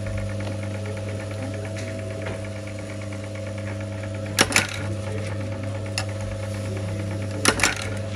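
Motorised jeans-button attaching press humming steadily, its ram striking down to fix metal tack buttons into denim: two quick sharp strikes about halfway through and two more near the end, with a lighter click between them.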